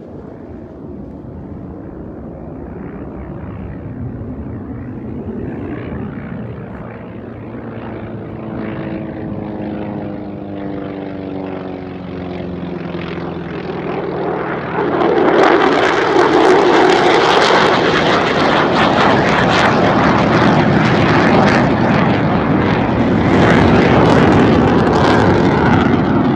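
F-35 fighter jet making a low pass. Its jet engine noise builds steadily, with a whine that falls in pitch as it goes by. About halfway through, the noise jumps much louder and stays loud.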